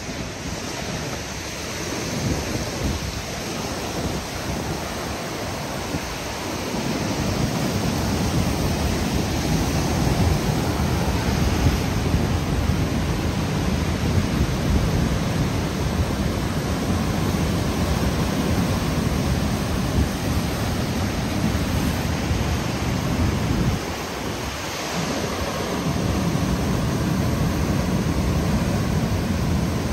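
Steady rushing, rumbling noise of wind and surf at the seaside, heavy in the low end, with wind buffeting the microphone. It eases briefly about 24 seconds in.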